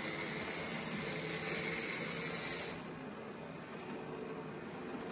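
Märklin H0 model trains running on the layout: a steady whine and rolling hiss from their motors and wheels on the track. The higher part of the whine cuts off about three seconds in, leaving a lower steady hum.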